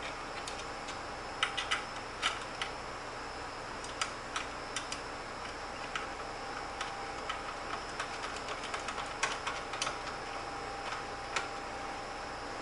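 Scattered light clicks and taps of hands working on a graphics card and its cabling inside a PC case, a few louder ones near the start, over a steady faint hum.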